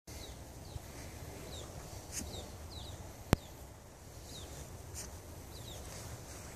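Small birds chirping faintly, short falling chirps about once a second, over a low outdoor rumble. A single sharp click about three seconds in is the loudest sound, with a couple of soft rustles in the grass around it.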